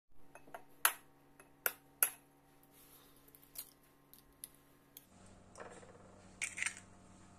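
Sharp clicks of eggshells cracking and knocking together while egg yolks are separated from the whites, three loud ones about one to two seconds in and a short cluster near the end, over a faint steady hum.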